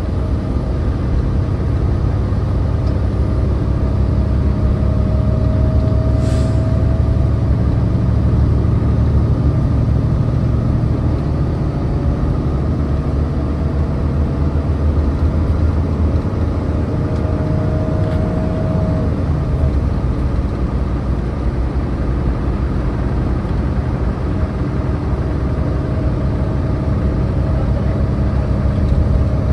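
Transit bus running under way, a steady low engine and drivetrain rumble, with a faint whine that rises in pitch several times as the bus gathers speed.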